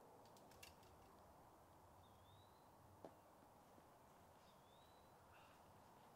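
Near silence, with a faint bird call, a short rising whistle, repeating about every two and a half seconds, and a faint click about three seconds in.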